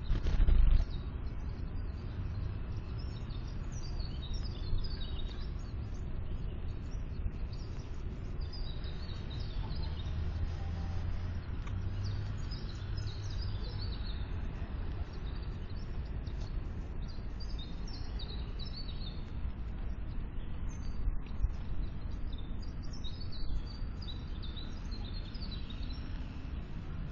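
Small songbirds chirping and twittering in short high calls throughout, over a steady low background rumble. A single loud thump comes right at the start.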